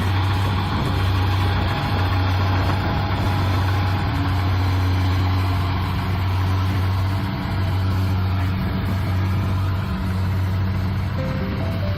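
Kubota DC-70 rice combine harvester's diesel engine running steadily with an even, deep drone.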